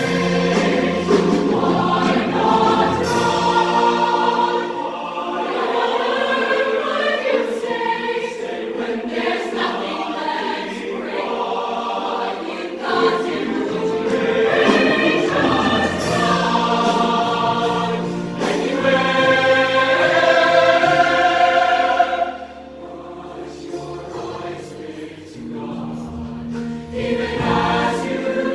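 Mixed show choir singing in full harmony with instrumental accompaniment. About three-quarters of the way through, the music drops suddenly to a softer passage, then builds again near the end.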